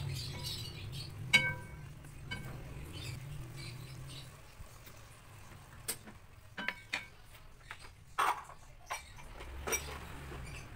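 A wooden spatula stirring and tossing napa cabbage stir-fry in a wok, with one sharp, ringing clink of the spatula on the metal wok about a second in. After about four seconds the stirring stops, and only a few scattered clicks and knocks follow.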